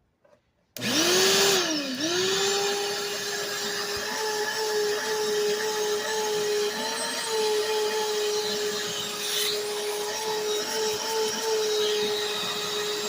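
5-gallon Shop-Vac wet/dry vacuum with hose attached, switched on about a second in: its motor whines up, dips and recovers, then runs steadily with a slight wavering in pitch. The owner says the motor sounds weird and something is wrong with it, with pet hair stuck to it.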